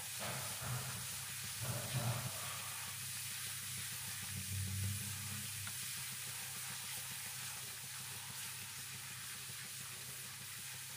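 Minced garlic sizzling in melted butter in a pan, stirred steadily with a wooden spoon.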